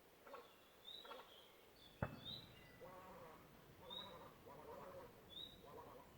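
Faint bird calls: short high chirps repeating about once a second, with lower, wavering calls in the middle. A single sharp click about two seconds in.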